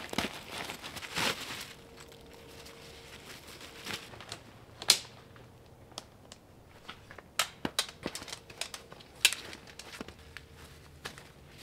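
Tent fabric rustling and crinkling during the first second or two, then scattered sharp clicks and taps, the loudest about five seconds in and about nine seconds in, as a hot tent is taken down in the snow.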